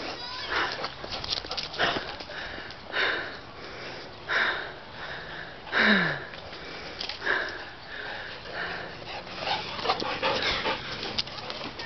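A dog sniffing and breathing hard close to the microphone, in a string of short breathy bursts about a second apart.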